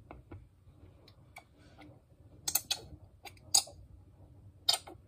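Several sharp, irregular plastic clicks and taps, the loudest in the second half, from handling a small food-colouring dropper bottle over a plastic mixing bowl.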